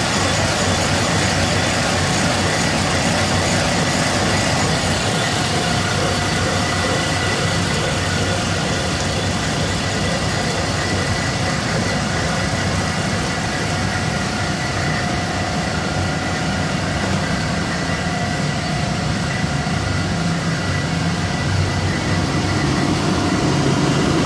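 Woodworking shop machinery running steadily, with dust-collection suction and motor noise and steady whining tones over it.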